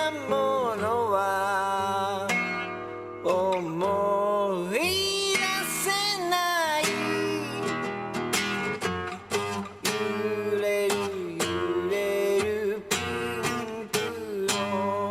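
Background music: a song led by acoustic guitar.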